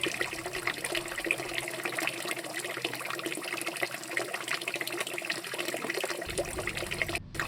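Water splashing and lapping in a steady, busy crackle of small splashes that cuts off abruptly near the end.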